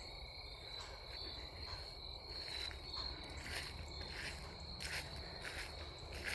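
Crickets trilling steadily in a high, thin tone. From about halfway through come a few soft, irregular footsteps on ground cover.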